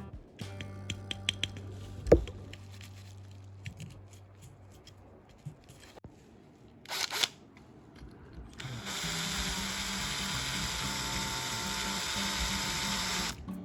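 Scattered handling clicks and one sharp knock about two seconds in, then a small power tool running steadily for about four and a half seconds near the end before it stops suddenly.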